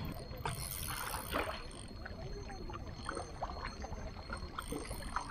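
Small sea waves lapping and splashing among shoreline rocks: a run of short, irregular splashes over a low steady rumble.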